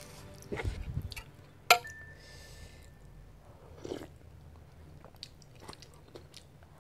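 Close-up eating sounds: a person biting and chewing food, with a scatter of small clicks and one sharp, loud click about two seconds in. About four seconds in there is a short sip of soup from a spoon.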